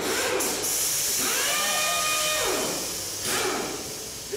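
Power air tool run on the underside of a car: a loud hiss of air with a motor whine that spins up, holds steady for about a second, then winds down, followed by a shorter hiss.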